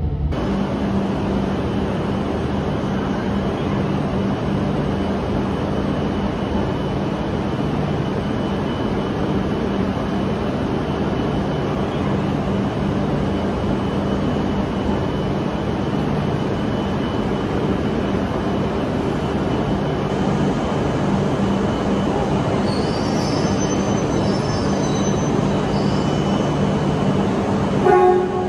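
Shinkansen train running, a steady rumble with a constant low hum. Faint high squealing tones come in about three-quarters of the way through, and a brief louder tone sounds right at the end.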